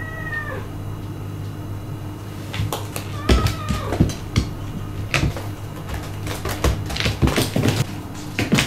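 A cat batting a small ball across a wooden floor: a run of irregular taps and knocks as the ball bounces and skitters, thickest in the second half. A short falling meow at the very start, over a steady low hum.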